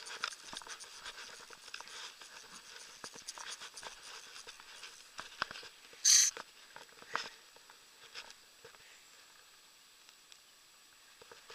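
Handling noise on the camera: irregular small scratches and taps, with one loud, short rubbing scrape about six seconds in and a smaller knock a second later, then quieter in the last few seconds.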